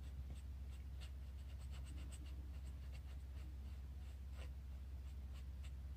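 Ink pen strokes on sketchbook paper: faint, irregular scratching as the pen fills in solid black areas, over a steady low hum.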